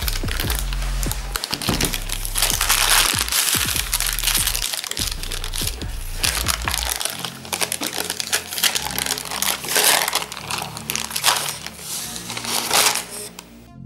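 Baking parchment crinkling and rustling as it is handled and peeled off a slab of set chocolate mixture, with many small crackles, over background music.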